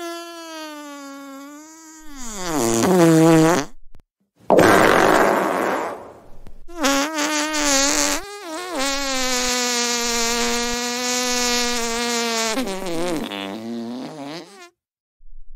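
A string of cartoon fart sound effects. First a pitched fart of a few seconds that wobbles and then drops in pitch, then a short noisy blast, then a long fart of about eight seconds, held at a steady pitch, that wavers at its start and sinks at its end.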